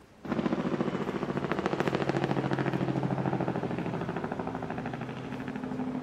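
A motor running with a fast, even pulsing beat over a steady low hum. It cuts in suddenly just after the start and eases off a little over the last couple of seconds.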